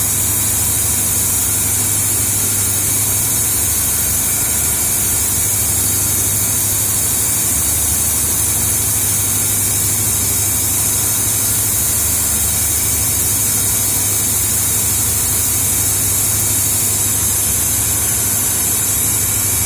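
BOGE air compressor running: a steady hiss of rushing air over a low hum.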